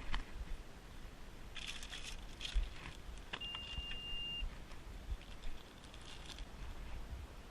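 Wind buffeting the microphone as a low rumble, with scattered rustling and handling noises and one short, steady, high-pitched beep about three and a half seconds in.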